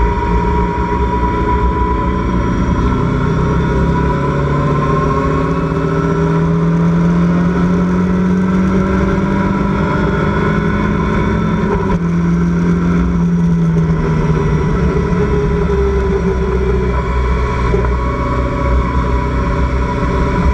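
Onboard sound of a Locost Seven-style race car's engine under power, heard from inside the open cockpit with wind and road noise. The engine note climbs slowly for several seconds, then drops back about two-thirds of the way through as the driver comes off the throttle.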